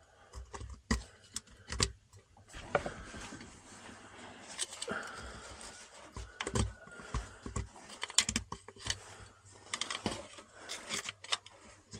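Irregular metal clinks, taps and clicks of small parts and hand tools as the oil strainer cover plate is worked off a VW Beetle's flat-four engine.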